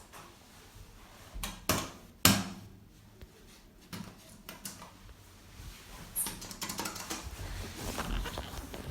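A few sharp knocks and clunks inside a stalled lift car, then fainter scattered clicks and rustling.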